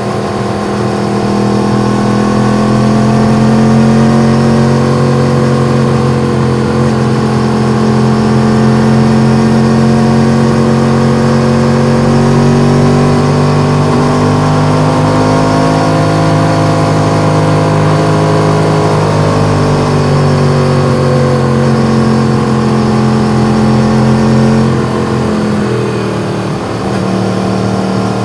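Yamaha MT-10's crossplane inline-four running steadily under way, its note rising and falling gently with the throttle. About 25 seconds in the revs briefly drop, then the engine settles back to a steady run.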